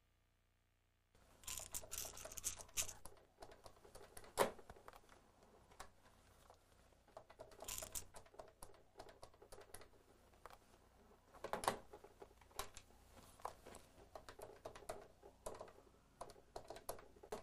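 Irregular light clicks and taps with a few short rustling bursts, starting about a second in.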